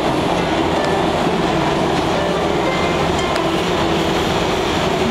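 Subway car running on the line: a steady, loud rumble and clatter of the train on the rails.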